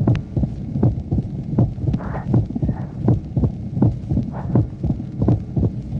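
Recorded human heart sounds of mitral stenosis, beating about 80 times a minute: an accentuated first heart sound, an opening snap of the mitral valve after the second sound, and a low-pitched diastolic rumble heard best at the end of diastole.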